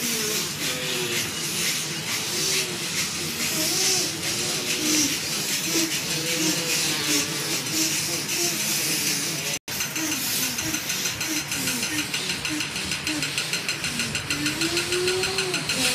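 Several people moaning and sobbing over heavy, hissing breath. Near the end a fast, even pulse of breathing joins in.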